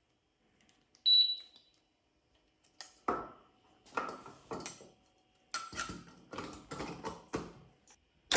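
Electronic keypad on a Cannon gun safe being tested after a new keypad and controller board were fitted: a single short high beep about a second in, then a quick run of about nine short beeps and clicks as the buttons are pressed.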